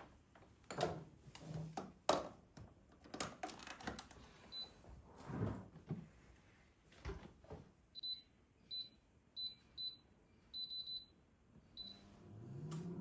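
Light knocks and clatter of things being handled, then a series of short, high electronic beeps like buttons pressed on an appliance's control panel. Near the end a motor starts up, its hum rising in pitch and then running steadily.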